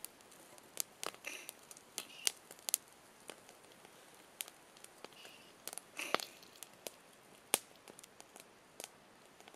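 Wood campfire crackling: irregular sharp pops and snaps from the burning sticks, with a few soft knocks from an enamel mug and lid being handled.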